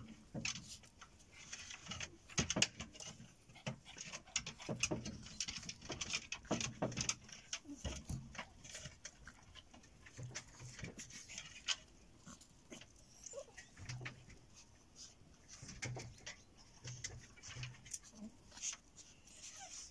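White spitz-type puppies playing on dirt: scuffling and scratching, with a few short puppy sounds.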